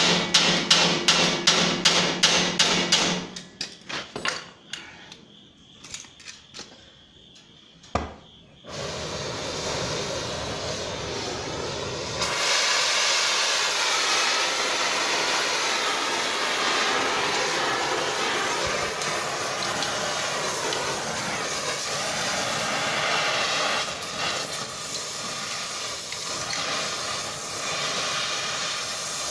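Ball peen hammer striking a freshly wrapped steel collar on quarter-inch round bar in a quick run of blows, about four a second, for the first three seconds, then a few lighter scattered taps. From about nine seconds a gas torch hisses steadily, louder from about twelve seconds on, as it heats the collar.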